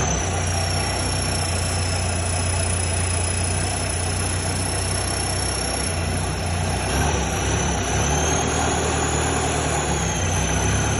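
Truck engine running steadily at idle, with a thin high whine above it that drifts slowly up and down in pitch.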